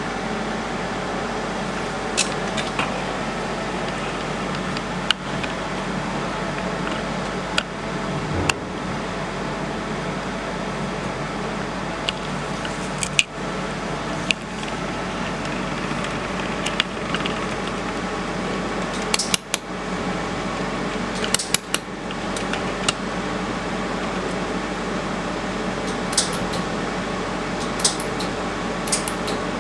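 Steady fan-like hum of running equipment, broken by scattered sharp metallic clicks and clinks, several of them close together in the second half.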